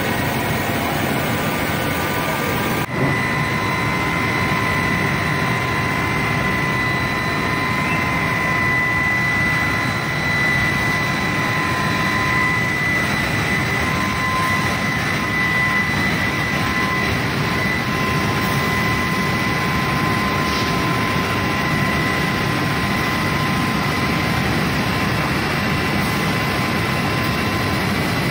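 Glass grinding and edging machinery running: a steady, dense machine noise. About three seconds in, a steady high whine joins it and holds.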